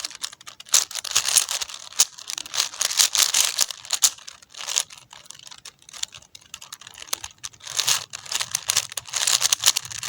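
Plastic 4x4 Rubik's cube being turned quickly by hand: rapid runs of clicking and clacking as the layers snap round, broken by short pauses.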